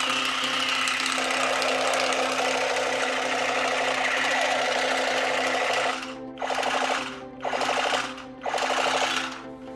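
A battery-powered toy's small motor whirring with a fast rattle, running steadily for about six seconds, then switched on in three short bursts.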